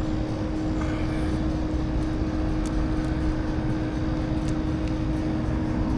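Steady outdoor background: a constant mechanical hum held on one pitch over a low rumble, with a few faint clicks.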